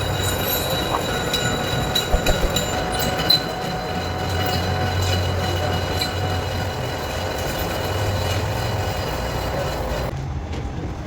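Metal lathe turning a steel tube, the cutting tool squealing in several steady high tones over the machine's low hum; the high squeal drops away about ten seconds in.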